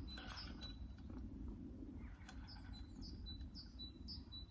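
Small songbirds calling with short, high chirps repeated every fraction of a second, the birds waiting to be fed. A few soft rustles and clicks sound in between.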